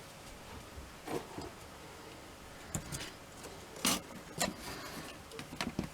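A ruler and pencil being handled and set against a wooden breadboard: a few scattered light taps and knocks.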